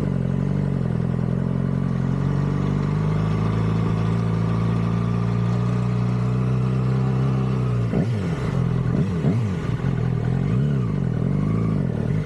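Stock 2006 Yamaha R6 inline-four engine running with its factory exhaust, holding a steady pitch for about eight seconds, then rising and falling several times in quick swells of the revs.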